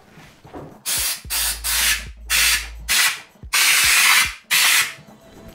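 Compressed-air spray gun fitted to a can of spray-on bed liner, hissing in about seven short trigger bursts starting about a second in, one of them longer near the middle, as a small area of the truck bed is test-sprayed with the gun's flow being opened up.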